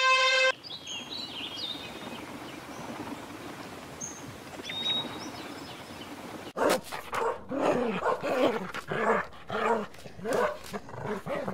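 An elephant's trumpet cuts off about half a second in. Faint high bird chirps follow for several seconds. From about six and a half seconds in, a dog barks and yips rapidly, two to three times a second; these barks are the loudest sound.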